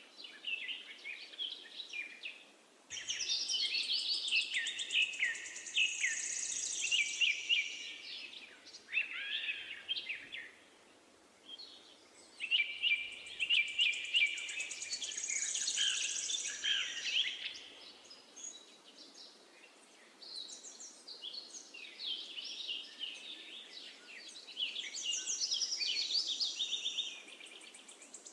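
A songbird singing long, rapid warbling phrases of several seconds each, separated by short pauses.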